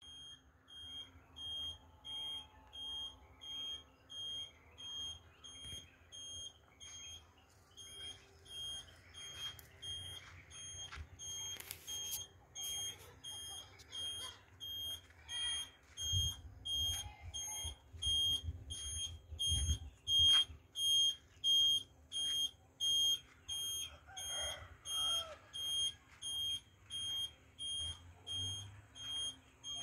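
High electronic beeper sounding in a steady repeating pattern, about three beeps every two seconds, over a low rumble that grows louder around the middle.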